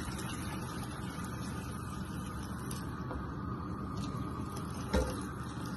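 Water pouring steadily from a kettle into a cooking pot. A single short knock sounds about five seconds in.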